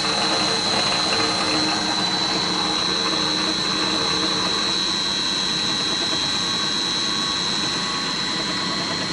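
Benchtop drill press running steadily on its new electric motor, fed from a frequency inverter, with the spindle turning at about 1550 rpm. A steady high-pitched whine sits over the running noise.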